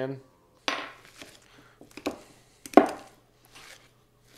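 Avocado being mashed in a glass mixing bowl with a hand masher: a few irregular soft knocks and squishes, the loudest about three seconds in.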